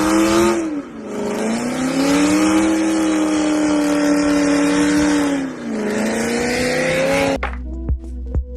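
Dodge Challenger SRT Demon's supercharged 6.2-litre V8 revving high and holding, dipping in pitch twice and climbing back each time. It cuts off suddenly near the end.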